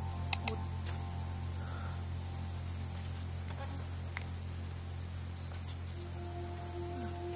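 Steady high-pitched insect drone, with short, high, falling chirps every half second or so over a low steady hum. A soft sustained musical tone comes in about six seconds in.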